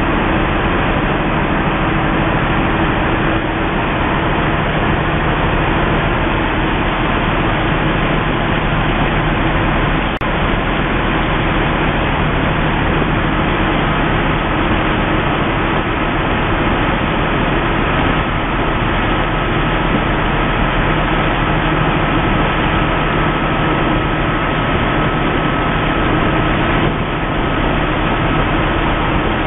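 Survey boat's engine running steadily under way, a low even hum over a constant rushing noise. A thin high whine joins about halfway through.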